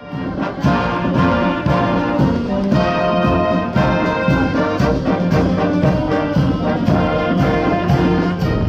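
Brass band playing, trumpets and trombones, over a steady drum beat of about two strokes a second.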